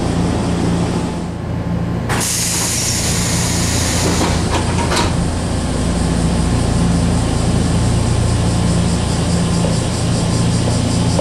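Air-operated sliding door of a Sanyo Electric Railway 3050-series commuter car opening with a sudden burst of air hiss about two seconds in, then a couple of sharp knocks near the middle. Under it runs the steady low hum of the stopped train's equipment.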